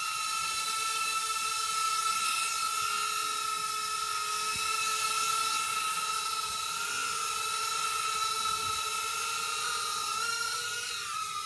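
Blade Inductrix FPV Tiny Whoop micro quadcopter in flight, its small brushed motors and ducted propellers giving a steady high-pitched whine. The pitch wavers slightly near the end as the throttle changes.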